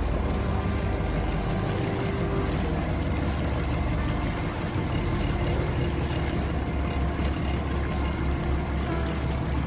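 A charter fishing boat's engine running steadily at slow harbour speed, a low rumble that pulses a little in the second half, over an even hiss.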